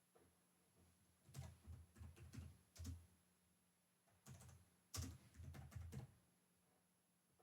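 Faint typing on a computer keyboard: two short bursts of keystrokes, the first about a second in and the second about four seconds in.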